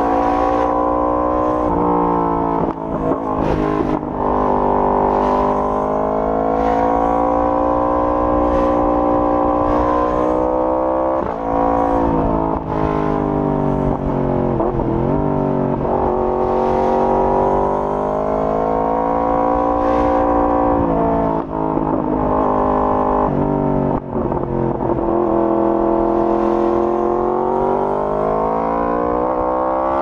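Yamaha R1's inline-four engine through an Akrapovic full exhaust system, running under way. The revs rise and fall slowly, with several brief dips.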